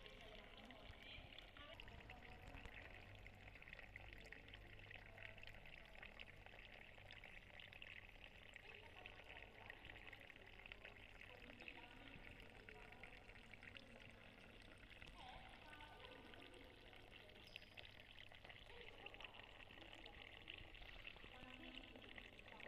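Near silence: a faint steady hiss of room tone, with faint distant voices now and then.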